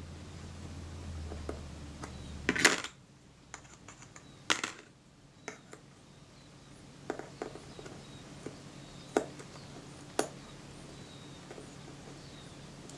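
Scattered small metallic clicks and taps of tweezers against a tiny pinhead screw and the camera rangefinder's metal parts, as the screw is worked toward a thread it has not yet caught. A low hum stops with a sharp click under three seconds in.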